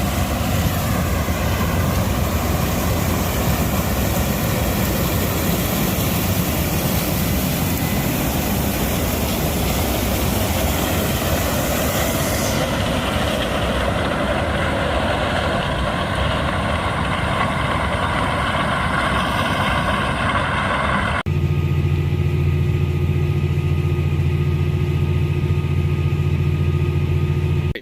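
Heavy farm machinery engines running steadily under load. About 21 seconds in there is an abrupt switch to a different steady, lower engine drone with a strong hum.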